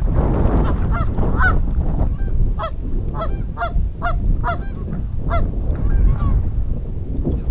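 Canada geese honking: a string of short, repeated honks, one or two a second, mostly between about one and six seconds in. A steady low rumble of wind on the microphone runs underneath.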